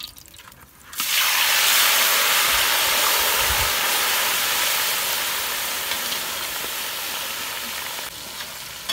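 Food sizzling loudly in a hot pan. It starts abruptly about a second in, eases off slowly, and drops sharply near the end.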